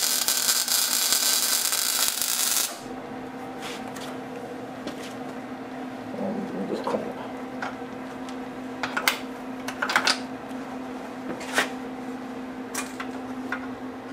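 Electric arc welding: the arc crackles and hisses steadily for the first few seconds, then cuts off. A steady low hum follows, broken by several light metallic clicks and clinks as the workpiece is handled with pliers.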